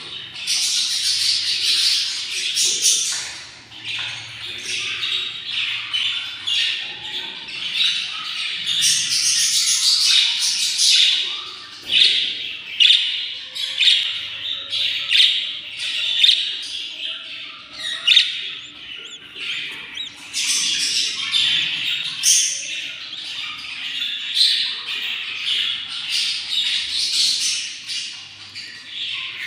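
Young budgerigar chicks in a nest box giving raspy food-begging chirps, a dense continuous chatter that swells and fades every few seconds with sharper squawks on top: the chicks are hungry.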